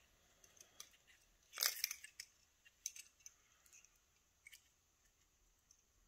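Faint handling sounds of a key wrapped in tape: one short crinkle of the tape about one and a half seconds in and a scattering of small clicks as the key and its ring are turned in the fingers.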